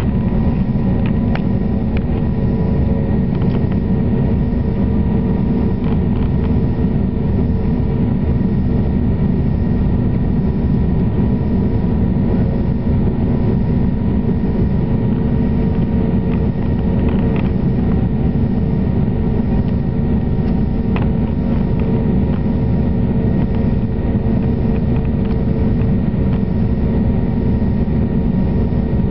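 Cabin noise of a passenger aircraft in flight at night: engines and airflow running steadily as a constant low rumble, with a few faint steady hums above it.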